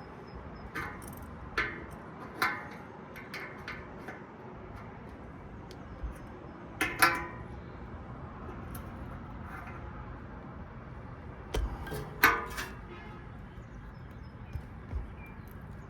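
Scattered metallic clinks and clicks of hand tools and parts being handled during a condenser fan motor swap, with the loudest clanks about 7 and 12 seconds in, over a steady background hiss.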